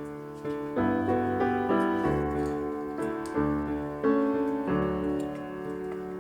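Gentle background piano music, chords struck about every half second and left to ring.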